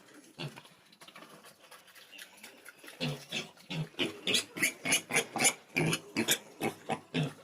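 Pigs eating their feed: a quick run of short grunts and chomps, several a second, starting about three seconds in.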